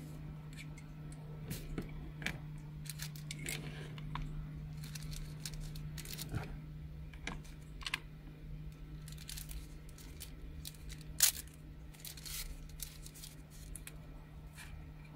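Thin plastic wrapping rustling and crinkling as small FPV goggle antennas are unwrapped by hand, with scattered light clicks and taps as the parts are handled and set down. There is one sharper, louder click about eleven seconds in, over a steady low hum.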